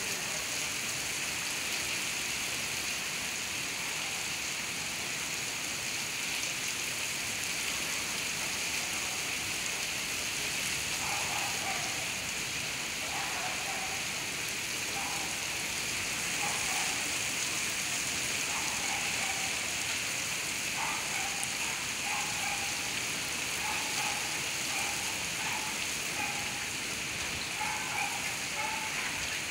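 Heavy monsoon rain pouring onto paving and the surfaces around it: a dense, even hiss that holds steady throughout.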